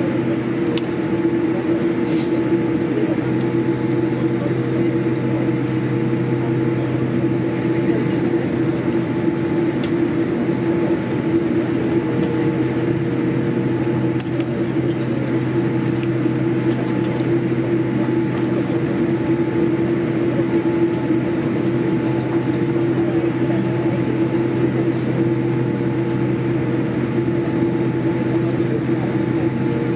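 Steady cabin hum of a Boeing 787-8 taxiing, with several constant low tones running through it.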